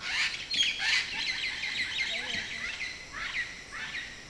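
Green parrots squawking: a rapid run of short, harsh calls, thinning out near the end, over a steady high chirring of crickets.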